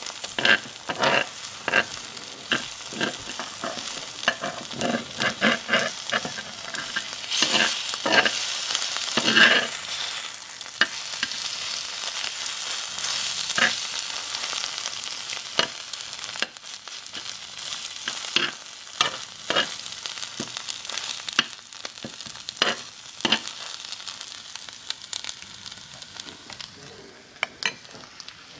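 Egg frying in a mini cast iron skillet, sizzling steadily, with repeated scrapes and taps of a metal utensil against the pan as the egg is pushed around. The scraping is busiest in about the first ten seconds and comes more sparsely after that.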